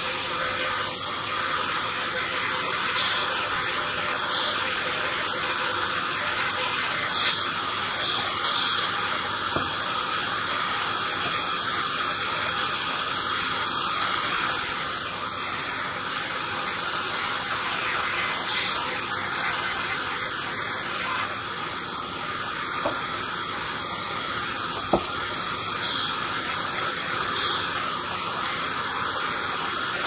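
Large sawmill band saw running and ripping a small log lengthwise, a steady hissing noise, with two brief clicks about two-thirds of the way through.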